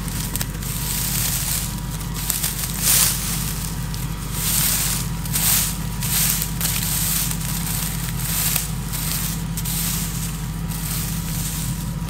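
Dry wheat straw and stubble rustling and crackling in irregular bursts as a hand pushes it aside, over a steady low hum.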